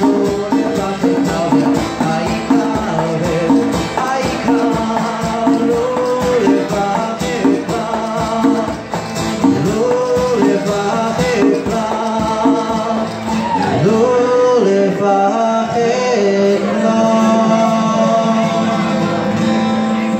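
Live acoustic music: a song, likely in Hebrew, sung over a strummed acoustic guitar and hand-played conga drums. The drumming is busier in the first half and thins out about two-thirds of the way in.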